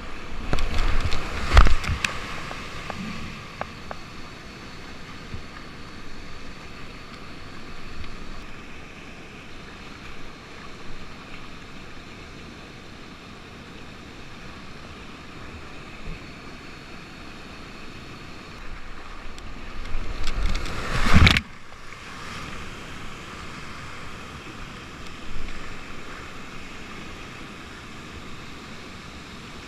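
Rushing whitewater and falling water heard from a kayak in a river, with loud splashes as the kayak drops off a ledge and crashes into the water below about two seconds in, and again around twenty-one seconds in.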